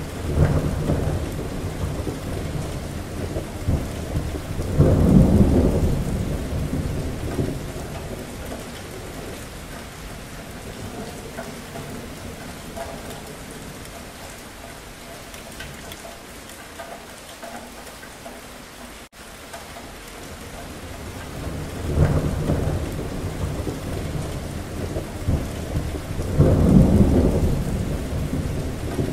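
Thunderstorm: steady rain with thunder rumbling twice near the start and twice more near the end. The sound drops out for an instant about two-thirds of the way through.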